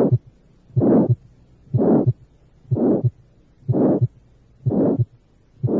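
Recorded heartbeat with an aortic stenosis murmur, about one beat a second. Each beat has a short first heart sound, then a systolic ejection murmur that swells and fades in a diamond (crescendo-decrescendo) shape, peaking mid-systole. A second heart sound follows the end of the murmur.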